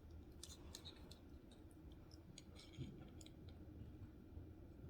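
Near silence with a few faint, scattered clicks and scratches: a screwdriver and small metal knife parts being handled during reassembly of a folding knife.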